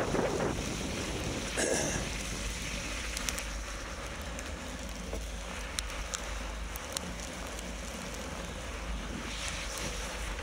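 Wind rushing over the microphone of a camera mounted on a moving bicycle, a steady noisy rush with low rumble, briefly louder near the start, with a few sharp ticks.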